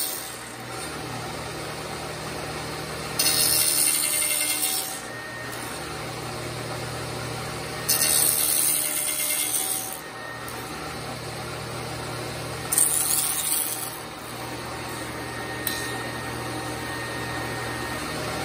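Table saw running steadily while its blade cuts into a wooden corbel blank in repeated passes: three cuts of a couple of seconds each, about four to five seconds apart, then a brief one near the end, as a wide dado is nibbled out one kerf at a time.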